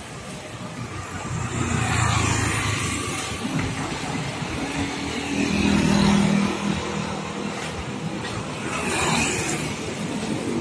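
Road traffic passing close by, motorcycles among it: three vehicles go past one after another, each swelling and then fading.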